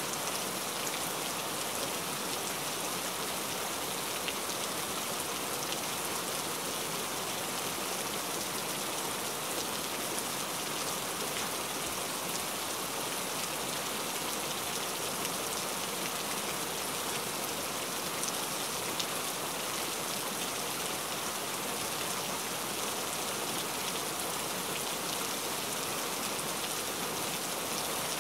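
Steady rain falling on a surface: an even, unbroken hiss with faint scattered drop ticks.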